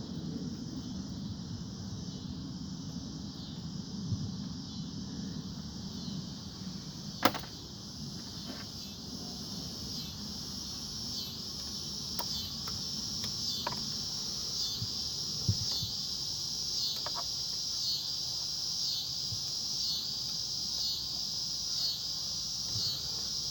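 Insects chirping in a steady high-pitched chorus that pulses a little faster than once a second. It is broken by a few sharp clicks, the loudest about 7 seconds in.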